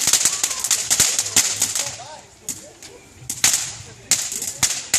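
Rapid sharp cracks and pops in dense clusters, thickest in the first second and a half and again just after the middle, with quieter gaps between.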